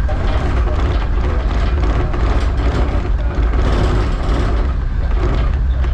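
Tugboat's diesel engines running hard astern, a loud, steady low drone.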